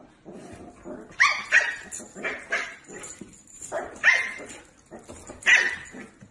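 A small puppy barking repeatedly at a larger dog, about eight short, sharp barks, some in quick pairs.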